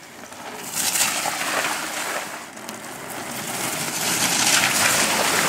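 Mountain bikes riding past close by, their knobby tyres rolling and crunching over dirt and gravel in a noisy rush that swells about a second in and again near the end.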